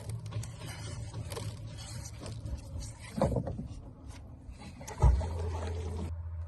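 Handling noise on a small boat while magnet fishing: rustling and scattered knocks, then a loud thump about five seconds in, followed by a steady low hum.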